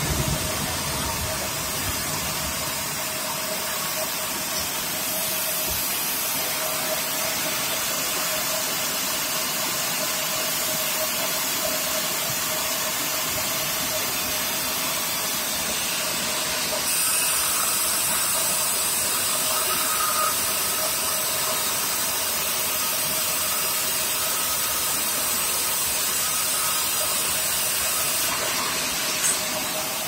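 Vertical band sawmill running, its blade cutting through timber fed on the carriage: a steady noisy rush with a constant tone underneath, becoming louder and brighter about seventeen seconds in.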